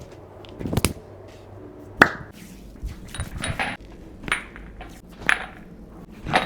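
Cupping therapy cups being handled on the skin: a series of sharp clicks and clinks, roughly one a second, the loudest about two seconds in, some followed by a brief hiss.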